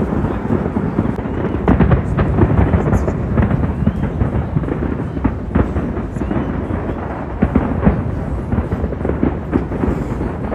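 Large fireworks display going off: a continuous low rumble of booms with many sharp bangs scattered through it.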